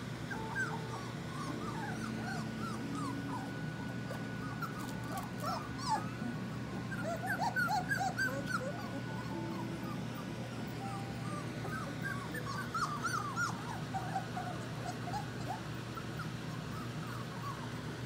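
Very young Labradoodle puppies whimpering and squeaking: many short, high-pitched whines that slide up or down, coming in scattered clusters and busiest about seven to nine seconds in and again around twelve to fourteen seconds.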